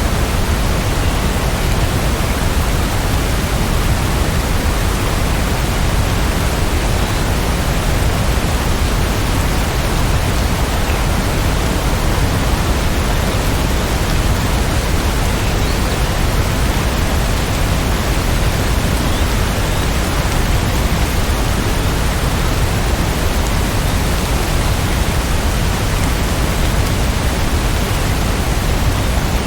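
Heavy rain as a steady, even hiss, with no single drops, thunder or music standing out.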